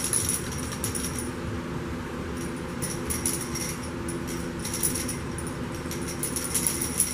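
A small plastic rattle toy jingling in short bursts as it is shaken and dangled, several shakes with pauses between, over a steady low hum.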